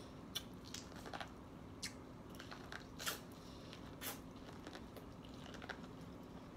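Biting and chewing kernels off a buttered ear of steamed corn on the cob: irregular short, crisp crunches and wet mouth clicks, two of them louder about three and four seconds in.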